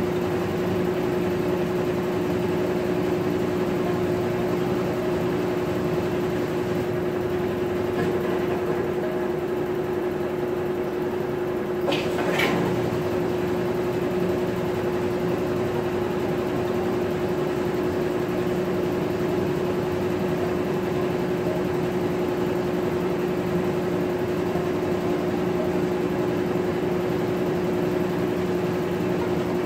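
Maytag top-load agitator washing machine running with a steady motor hum. A short, higher-pitched sound cuts in briefly midway.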